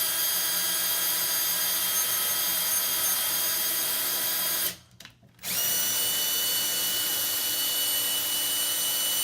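Electric drill running at a steady speed, boring a small pilot hole for a knob in a wooden cabinet door. It stops a little under five seconds in and starts up again under a second later.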